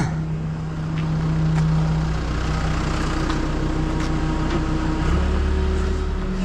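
Hino rollback tow truck's diesel engine running at a steady idle. About five seconds in, the engine note steps up and gets fuller, as the idle is raised.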